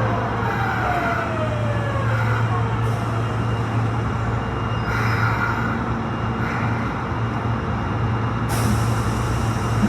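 Osaka Metro Tanimachi Line 22 series train running, a car whose motor sound is called unusually high-pitched. Its traction motor whine glides down in pitch in the first couple of seconds as the train slows, over a steady low running hum, with a short hiss near the end.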